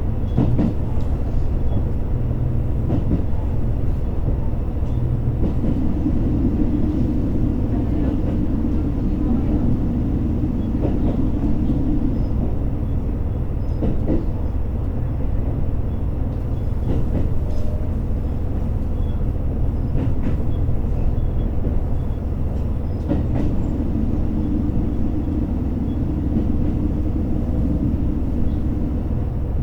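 Inside a JR Hokkaido H100 diesel-electric railcar: a steady low drone from the train's diesel engine and running gear, swelling twice for several seconds, with scattered sharp clicks from the rails.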